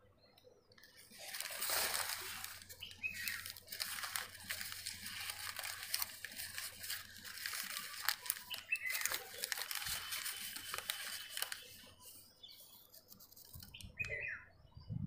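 Crumpled paper rustling and crinkling as hands unwrap eggs from balls of lined notebook paper. It is dense from about a second in and thins out near the end.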